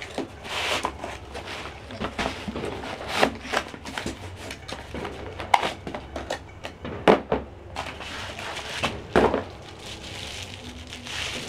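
Cardboard boxes and plastic wrapping being handled: rustling, scraping and scattered taps, with a few sharper knocks, as a power cord and a plastic-wrapped part are taken out of a laptop's accessory box.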